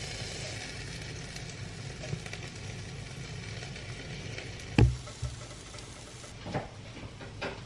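Food sizzling steadily in a frying pan, with a dull knock about five seconds in and a few light clicks near the end.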